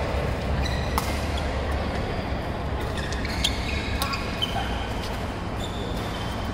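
Ball play on an indoor court: a few sharp impacts and short high squeaks echoing in a large hall, over a steady background murmur.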